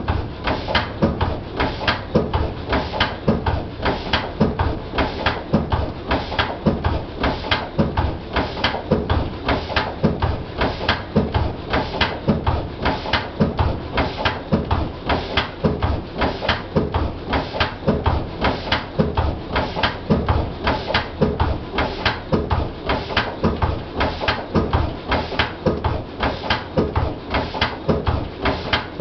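Single-cylinder Lister CS stationary diesel engine running steadily, a slow, even beat of firing strokes.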